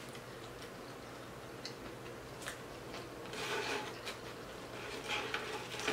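Faint crackling and rustling of crispy fried fish and bread being pulled apart by hand, with a few light clicks, over a low steady hum.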